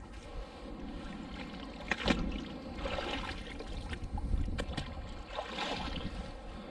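Wind rumbling on the microphone outdoors, with a few sharp clicks and knocks, the loudest about two seconds in and another a little before five seconds.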